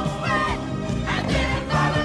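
Voices singing a musical number over band accompaniment.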